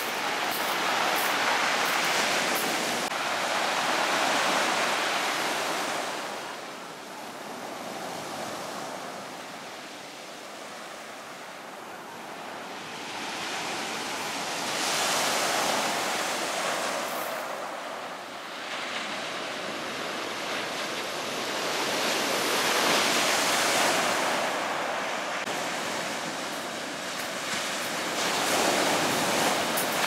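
Sea waves breaking and washing up a pebble beach, the surf swelling and ebbing in surges every several seconds.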